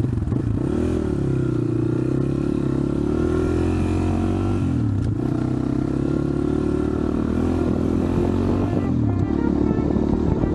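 Regulmoto motorcycle engine running under way, its revs dipping and climbing again a few times, as between gear changes.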